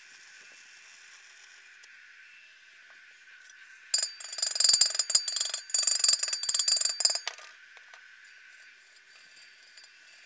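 Chipping hammer rapidly striking a fresh stick weld on a steel truck wheel to knock off the slag: a dense run of quick metallic taps with a ringing note, starting about four seconds in and lasting about three seconds. A faint arc hiss from the stick welder fades out in the first second or two.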